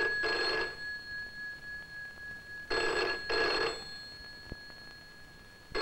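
A British rotary-dial desk telephone's bell ringing in the UK double-ring pattern, two short rings then a pause. One pair sounds at the start, another about three seconds in, and the next begins at the very end.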